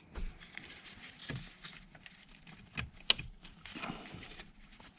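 Plastic wiring connector being handled and pushed onto a Honda ignition switch: faint rustling and small clicks, with one sharp click about three seconds in.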